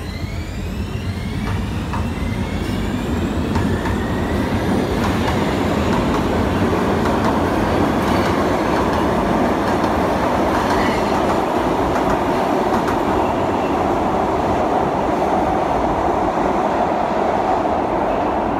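Rotterdam metro train of type B and MG2/1 units pulling away: a whine rising in pitch in the first couple of seconds as it accelerates, growing louder, then the steady rumble of wheels on rails as the eight cars run past.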